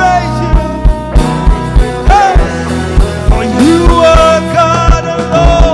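Live church worship band playing a gospel praise song with a steady drum beat under sustained chords, with a voice singing and sliding between notes over it.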